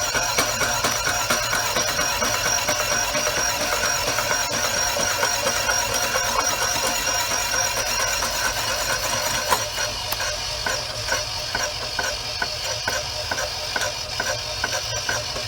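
Electric fruit-slicing machine running, its motor giving a steady whine with several constant tones. From about ten seconds in, a regular pulsing of roughly two beats a second rides on top.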